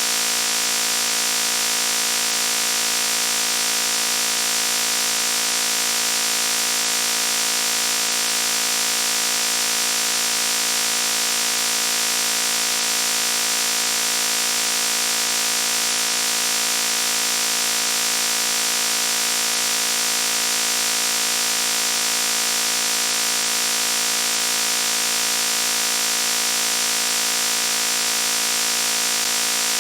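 Loud, steady buzzing tone that holds one low pitch without change, with a harsh, bright top to it.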